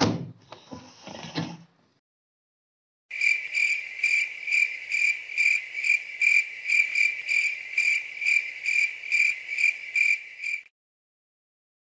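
Cricket chirping: a high, steady trill pulsing about three times a second, starting about three seconds in and cutting off abruptly near the end. It is preceded by a thump and a brief rustle at the very start.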